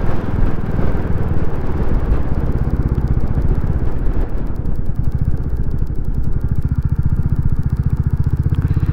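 Royal Enfield Classic 350's single-cylinder engine running at low revs as the bike slows for a junction. Wind rush on the microphone fades about halfway through, leaving the engine's steady beat plainer.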